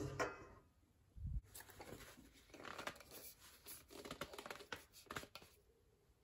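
A single knock of a glass jam jar with a screw-on metal lid, then a low thump and about four seconds of cloth rustling and scraping as the hot jar is gripped in a quilted fabric potholder and tipped over; the handling sounds fade out near the end.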